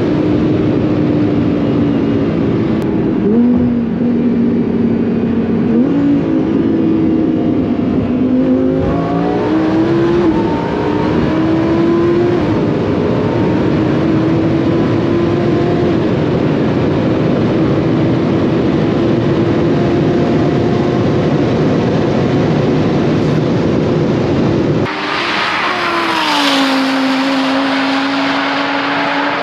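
Cabin sound of a twin-turbo Lamborghini Huracán's V10 at about 265 km/h in sixth gear, with heavy wind and road roar. The engine note wavers and rises slightly a few times. Near the end the sound switches to a roadside recording, where a car goes by with a falling pitch.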